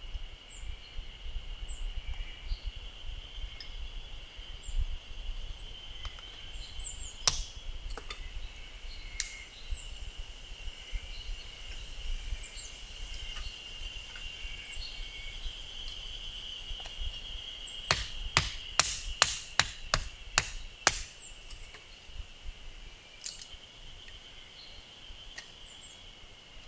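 Firewood being split: sharp strikes of a tool into wood, two single blows in the first third, then a quick run of about eight strikes, and one more near the end. Behind them, birds chirp over a steady high-pitched drone.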